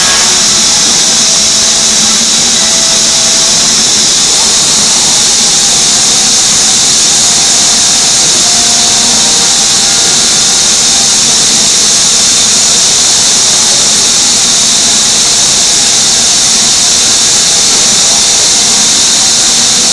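Five-axis CNC router spindle cutting into a wooden door panel: a loud, steady, high hiss that runs without a break while the bit routes the wood.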